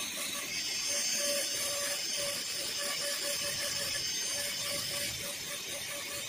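High-speed dental handpiece spinning a bur and grinding down the chewing surface of a plastic practice molar: a steady high whine over a rough grinding hiss. The whine fades about five seconds in.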